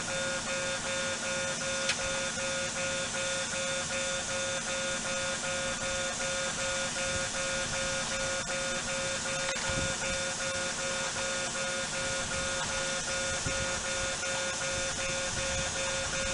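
Japanese railway level-crossing warning bell ringing on and on at an even level, a steady ringing tone with fainter higher overtones.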